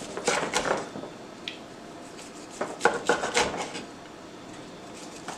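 A knife cutting fried chicken on a cutting board. There are two short spells of taps and knocks, one near the start and one about three seconds in.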